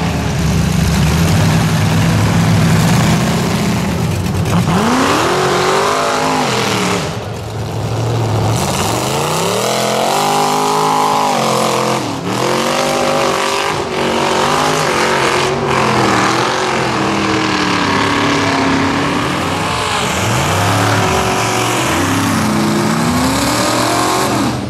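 Mud-bog Chevrolet pickup's engine revving hard over and over, the pitch rising and falling as the driver works the throttle, while the spinning tyres churn through deep mud.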